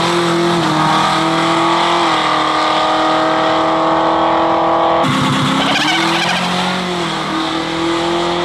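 A drag race car's engine at full throttle on a run down the strip. Its note stays at a steady high pitch with brief dips about 2 s in and near 7 s, the gear changes. About 5 s in the sound breaks off abruptly and a second run begins.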